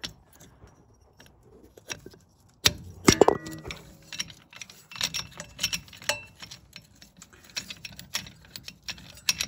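Metal clinks and clicks of a brake caliper piston compressor tool being fitted and expanded against a rear brake caliper. There is a sharp metallic clank with brief ringing about three seconds in, then a run of irregular light clicks and knocks.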